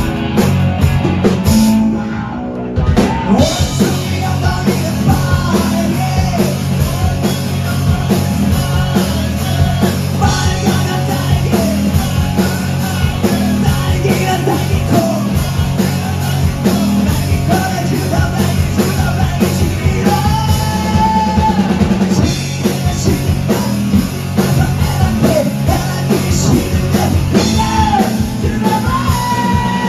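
Live rock band playing loud, punk-styled rock: drum kit, electric guitars and a singer's voice. The band cuts back briefly about two seconds in, then comes straight back in with the singing.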